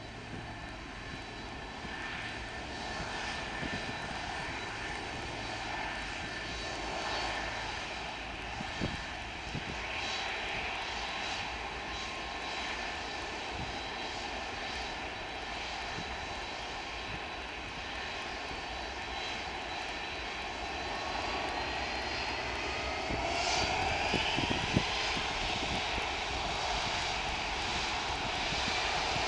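Boeing 747 freighter's four jet engines running with a steady roar and high whine. Near the end the whine rises in pitch and the sound grows louder as the engines speed up.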